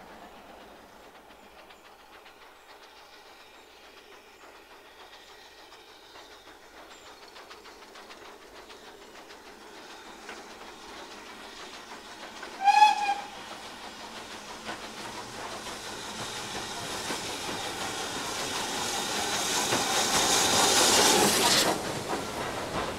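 A steam locomotive's whistle gives one short blast about halfway through. Then a steam train is heard approaching, its exhaust and wheels on the rails growing steadily louder before cutting off sharply near the end.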